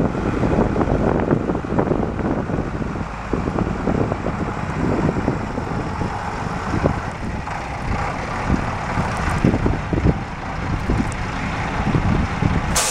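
A 1994 International 4900 truck's DT466 inline-six diesel engine running, with an uneven, gusty rumble over it typical of wind on the microphone.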